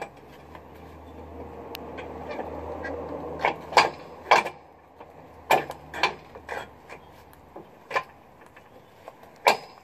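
Scattered sharp metallic clinks and knocks as a steel wedge-brake shoe is handled and fitted on a truck's rear brake assembly, over a low steady hum that swells and then fades out about seven seconds in.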